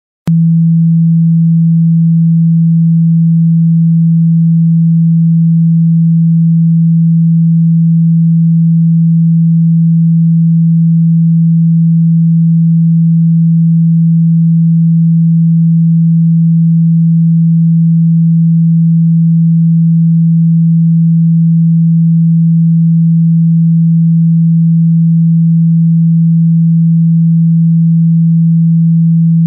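A steady, low, pure sine-wave tone on one unchanging pitch, switching on abruptly right at the start. It is a speaker-cleaning tone, played through a phone speaker to vibrate water and dust out of it.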